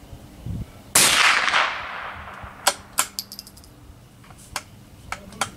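A single shot from a CZ 452 bolt-action .22 LR rifle about a second in, its report ringing out and dying away over about a second. It is followed by a string of sharp metallic clicks as the bolt is worked.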